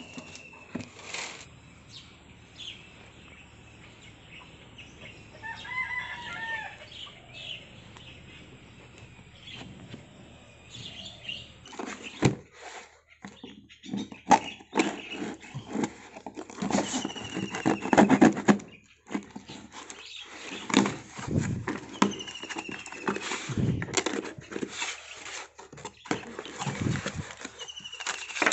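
A few quiet seconds with a bird calling once, then a knife slitting packing tape on a cardboard parcel and the cardboard rustling and knocking as the box flaps are pulled open. Short falling bird chirps recur in the background.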